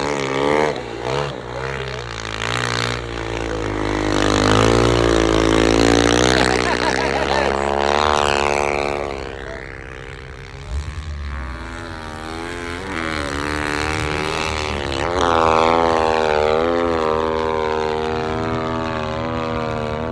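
Snow bike engine revving up and down as the bike carves through deep powder, its pitch rising and falling again and again. It is loudest in the first half, dips about halfway through, then picks up again.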